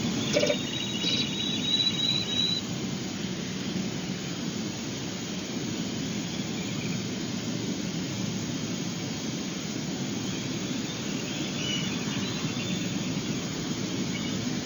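Ospreys calling at the nest: a run of high, pulsed chirps in the first couple of seconds, with fainter calls near the end, over a steady rushing background noise. There is a knock just after the start.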